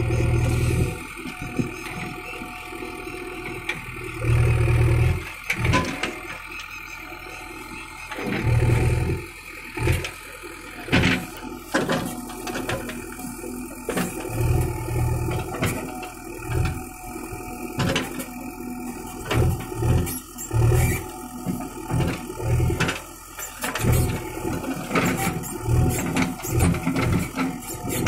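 JCB 3DX backhoe loader's diesel engine running and surging under load every few seconds as the hydraulic backhoe arm digs, with sharp clanks and rattles from the bucket and linkage striking earth and stones.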